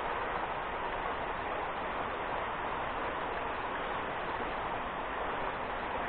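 River water running steadily over rocks: an even, unbroken rushing.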